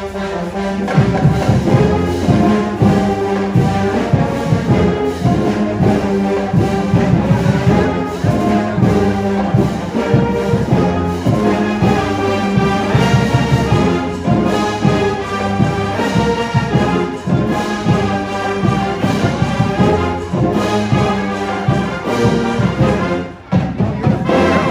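College marching band playing live: brass, woodwinds and sousaphones over a steady drum beat, with a brief break near the end.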